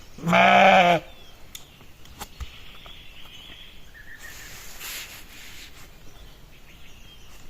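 A sheep bleats once, a loud wavering call lasting under a second near the start.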